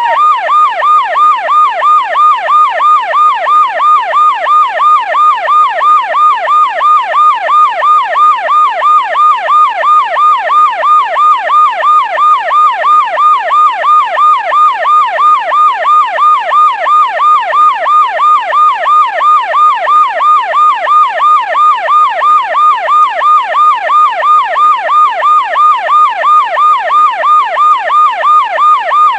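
Police car siren in a fast yelp, its pitch sweeping up and down about two to three times a second in an even, unbroken cycle, loud and steady throughout.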